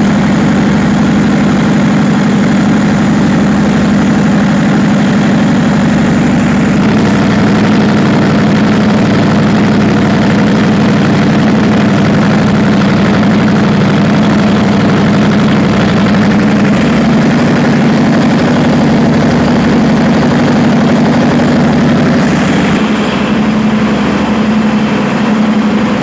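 Perkins 4012 V12 diesel engine running steadily just after a general overhaul. Its note shifts slightly about seven seconds in and again around seventeen seconds, and it drops a little in level near the end.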